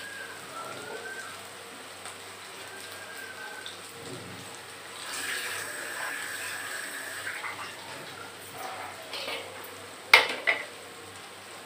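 Sliced onions and green chillies frying in oil in an aluminium kadai, a steady soft sizzle that grows louder for a couple of seconds midway. Two sharp knocks come close together near the end.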